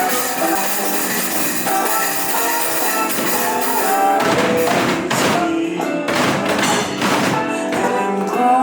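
Music playing, with several held notes and a few sharp strokes in the middle.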